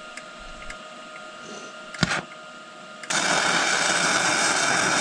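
A sharp clack about two seconds in, then about a second later a MIG welding arc strikes and runs with a loud, even sizzling hiss, laying a weld bead that fixes a steel grouser bar onto a dozer track shoe.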